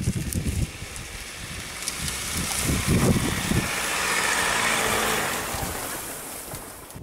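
Ford Ranger Raptor pickup with its 2.0-litre twin-turbo diesel driving past on a grassy dirt track. The engine and tyre noise swell as it nears, peak about four to five seconds in, and fade as it moves away, with wind gusting on the microphone.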